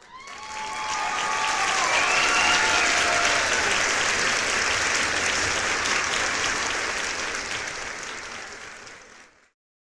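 Crowd applause with a few cheers and whoops, fading in at the start and fading out near the end.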